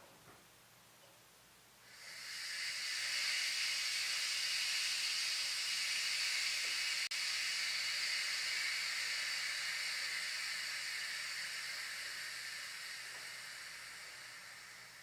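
Air hissing out in a steady stream, starting about two seconds in and slowly fading toward the end, like air being vented from air suspension bags.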